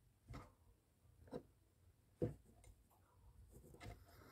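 Faint scratches and taps of a cat's claws scrabbling at the wooden boards of a narrow gap, with one sharper knock about two seconds in. A soft hissy noise builds near the end.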